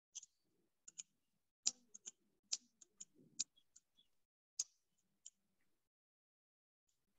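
About a dozen faint, sharp clicks and taps at irregular intervals, the loudest coming just under two seconds in and again past four and a half seconds, with a faint low rustle among them.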